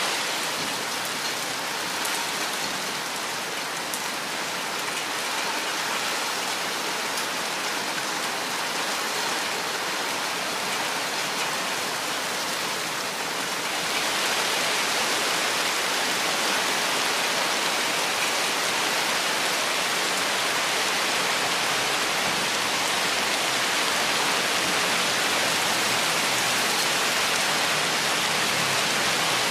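Steady rain falling in a forest: an even, dense hiss of drops that gets a little louder and brighter about halfway through.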